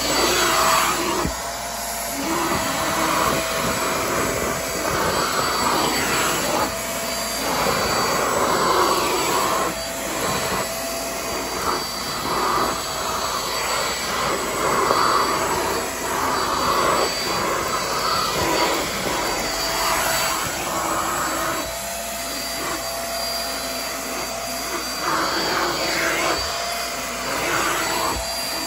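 Queen Made corded handheld stick vacuum cleaner running at full suction, with a steady motor whine over a rush of air that swells and dips as its floor nozzle is pushed back and forth over a shaggy carpet, sucking up scraps of paper.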